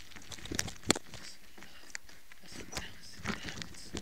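Bicycle rolling over a stony dirt track: tyres crunching on loose stones with scattered rattles and knocks from the bike, one sharp knock about a second in.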